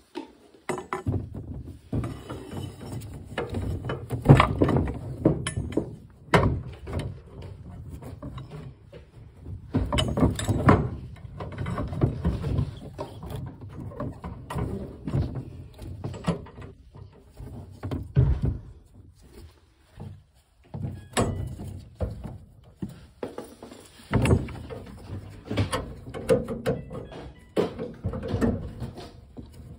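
Irregular knocks, clunks and rubbing from copper gas pipe and brass compression fittings being handled and fitted into place, with short pauses between bursts of handling.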